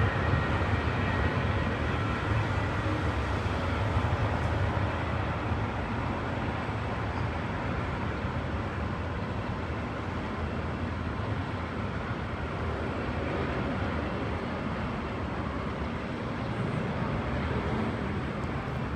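Jet airliner engines with a steady, rumbling roar and a faint high whine at first, slowly fading as the aircraft moves away.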